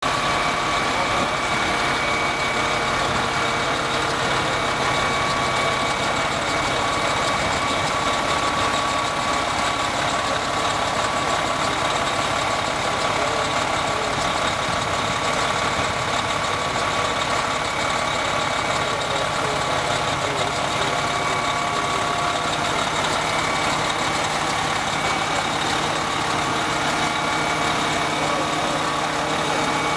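Pierce fire engine's diesel engine idling steadily, with a thin steady whine running over the engine noise.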